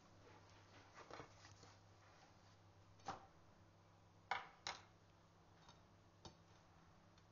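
A few short, sharp clicks and knocks of kitchenware being handled over a low steady hum. The loudest are two close together a little past the middle.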